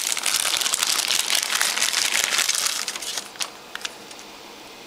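Thin clear plastic bag crinkling for about three seconds as a power adapter and its cord are pulled out of it, then a couple of light clicks.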